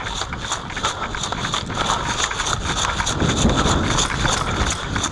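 Quick running footsteps on a dirt and grass path, with loose gear and a rifle rattling at each stride. A low wind rumble on the microphone swells about three seconds in.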